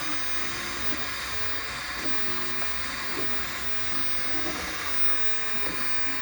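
Acura MDX V6 engine running in the engine bay, a steady hiss and whir at an even level.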